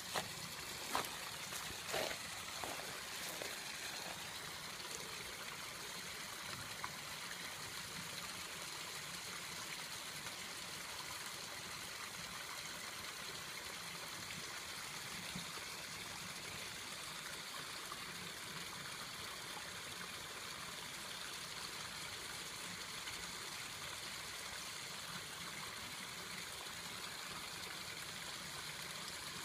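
Steady trickling and running water at a garden koi pond, with a few footsteps crunching on gravel in the first couple of seconds.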